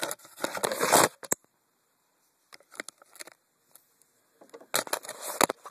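Handling noise from the camera being moved: two loud spells of rubbing and scraping against the microphone, one at the start and one near the end, with a few scattered clicks and knocks between them.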